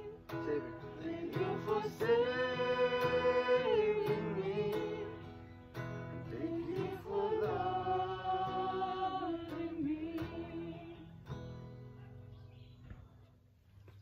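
Slow camp worship song sung with a strummed acoustic guitar: long held sung notes over the chords, the song ending and fading out over the last few seconds.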